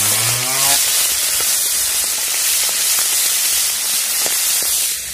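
Small prawns frying in hot oil in an aluminium wok: a loud, steady sizzle with frequent small pops of spitting oil.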